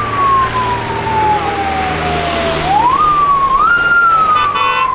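An emergency vehicle siren wailing: a single tone that jumps up quickly and then slides slowly down, starting over about every two to three seconds, above the hum of heavy traffic. A short buzzy tone cuts in near the end.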